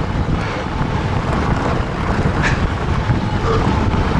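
Steady wind buffeting the microphone while riding a fat-tire electric bike off-road.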